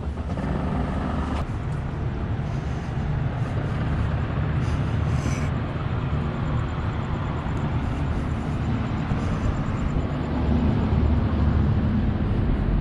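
City street ambience: a steady low rumble of road traffic, with wind on the microphone.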